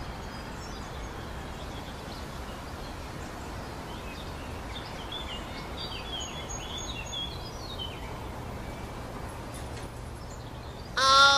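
Steady outdoor background noise with faint bird chirps in the middle. Near the end a loud, high-pitched voice cries out.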